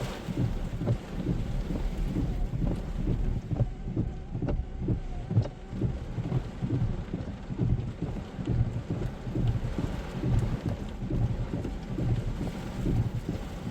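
Torrential rain and high wind in a severe thunderstorm: a dense low rumble that rises and falls in gusts, with a hiss of rain and scattered drop ticks over it.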